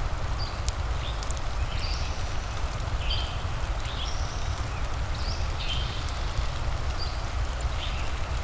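Rain and fireplace ambience: a steady low rumble and hiss with sharp crackling ticks. Over it, a short high chirping call repeats about once a second.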